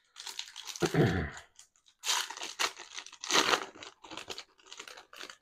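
Card packaging wrapper crinkling and tearing as a Secret Lair card pack is opened by hand.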